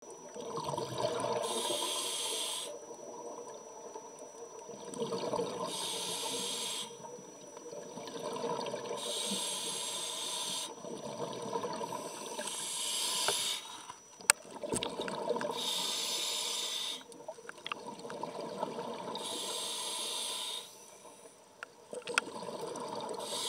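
Scuba diver breathing through a regulator underwater, about seven slow breaths: each a short hiss of inhaled air followed by a longer bubbling rumble of exhaled bubbles. A sharp click about halfway through.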